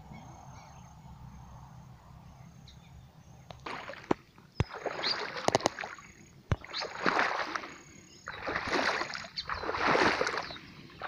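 Footsteps splashing and sloshing through shallow muddy floodwater, about one step every second or so, starting a few seconds in, with a few sharp clicks among them.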